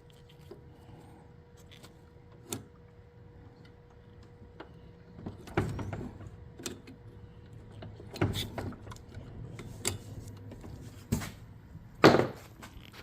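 Pliers and metal parts clicking and knocking as the fuel line is worked back onto a Honda HRM215 mower's new carburetor, with heavier knocks about halfway through and the loudest knock near the end.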